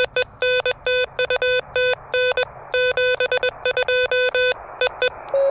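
Morse code (CW) from an Elecraft KH1 transceiver played through a small speaker: a low beeping tone keyed rapidly in dots and dashes, with receiver hiss between the characters. The keying stops about five seconds in, and a slightly higher-pitched tone takes over near the end.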